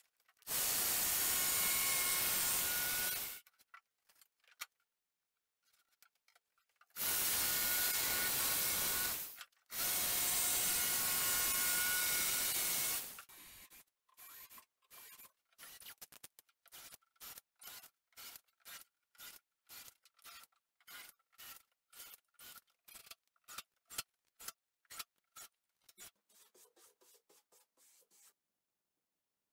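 Jigsaw cutting plywood, a loud rasping cut in three long stretches, then a cordless drill/driver driving screws into the plywood top in a long run of short whining bursts, about two a second.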